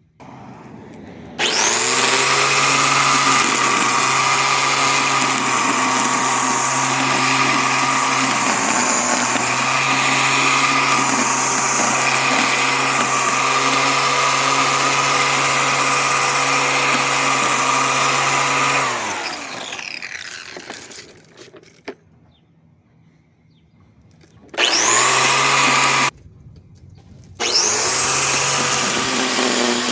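BLACK+DECKER 3-in-1 corded electric lawn mower's 6.5-amp motor and blade spinning up with a rising whine and running loud and steady, then coasting down with a falling pitch. After a pause of a few seconds it is switched on briefly, stopped, and switched on again.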